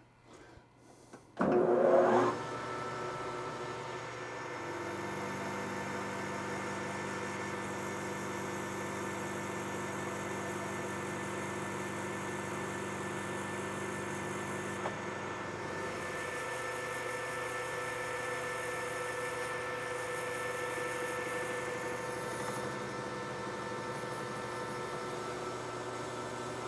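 Metal lathe spindle starting up about a second and a half in with a short rising whine, then running steadily with a hum of several fixed tones.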